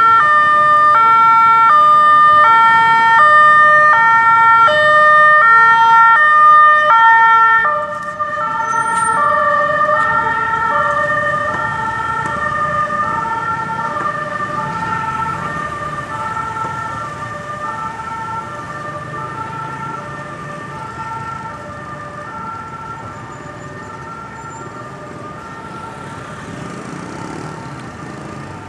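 Ambulance siren sounding a two-tone hi-lo wail that alternates about once a second. About eight seconds in, the pattern changes to a different, slower alternation, and the siren grows steadily fainter.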